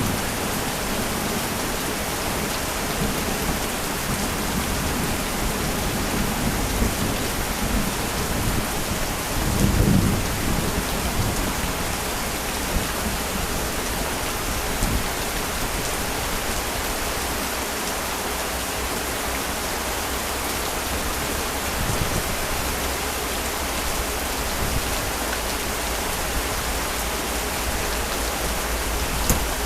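Heavy rain pouring steadily, with a low rumble of thunder about ten seconds in.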